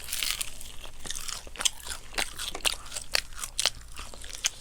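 Crisp-skinned Kyochon honey fried chicken being bitten and chewed close to the microphone: a rapid run of sharp crunches and crackles, several a second.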